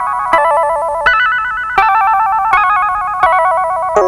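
Synthesizer melody of warbling electronic notes, each note a rapid trill like a phone ringer, a new note starting about every 0.7 seconds and stepping up and down in pitch.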